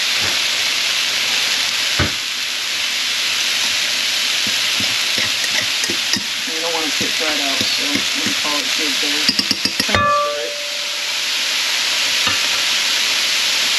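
Steady sizzle of fish fillets and vegetables frying in pans on the stovetop. Over it, a utensil scrapes and knocks in a stainless steel pot as cooked quinoa is fluffed and scooped out, with a quick run of taps and a brief ring about ten seconds in.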